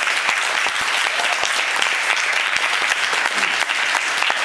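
Audience applauding: a dense, steady crowd of clapping hands.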